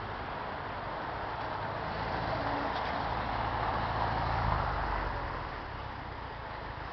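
A car passing close by: its noise swells to a peak a little over four seconds in and fades away, over a steady hum of city traffic.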